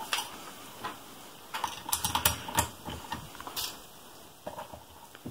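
Scattered light clicks and taps of metal parts and a screwdriver being handled as the end cap and mounting feet are fitted onto an air compressor's motor housing, with a quick cluster of clicks about two seconds in.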